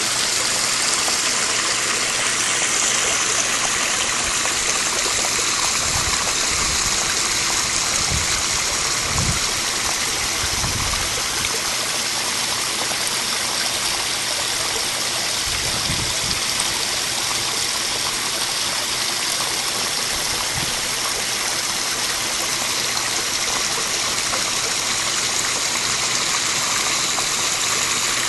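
Pondless waterfall running: pumped water pouring and splashing over rocks down a short stream bed, a steady, even rush. A few brief low bumps come through in the middle.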